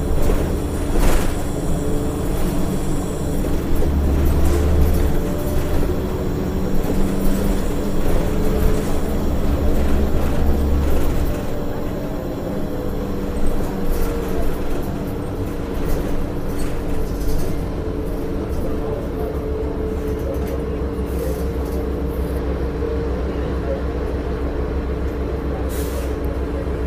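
Inside a 2006 Orion VII low-floor bus under way: its Cummins ISL diesel engine drones with a steady transmission whine, working harder for several seconds, then easing off about halfway through before running steadily again. A clunk sounds about a second in.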